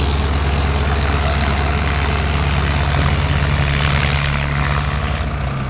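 Farmtrac 45 and Mahindra 585 tractor diesel engines running hard under heavy load in a tug-of-war pull, a steady low engine note with a broad rush of noise over it. The engine note eases off about five seconds in.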